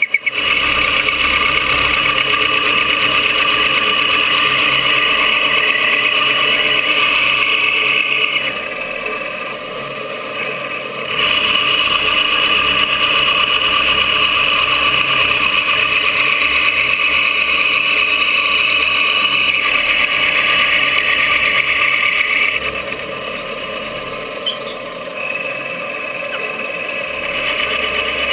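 Milling machine running, its end mill cutting the trigger pocket of an EP Armory glass-filled polymer 80% AR-15 lower: a steady, loud, high-pitched machining noise. It turns quieter for a few seconds about a third of the way in, and again for several seconds toward the end.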